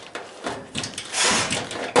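Hands working at a furnace blower motor and its wiring: irregular rustling and clicking, with a louder scraping rush a little past halfway and a sharp knock at the end.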